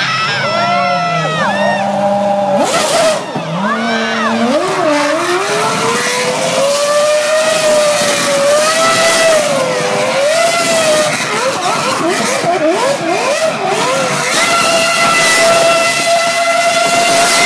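Formula One car spinning donuts in its own tyre smoke: the engine is revved hard against wheelspin. The pitch climbs over the first few seconds, wavers, blips rapidly up and down, then is held high near the end.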